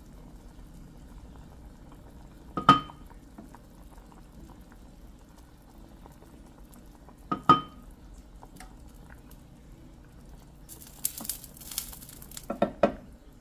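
A pot of shrimp broth boiling with a steady bubbling while the foam is skimmed off. A utensil clinks sharply against the pot twice, a few seconds apart. Near the end there is a brief hiss and a few quick clatters.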